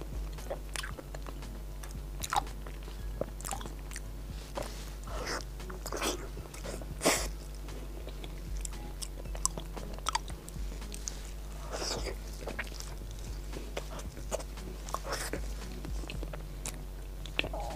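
Close-miked mouth sounds of someone biting and chewing a giant taro-paste snow mochi (xuemeiniang): short, wet, sticky smacks at irregular intervals.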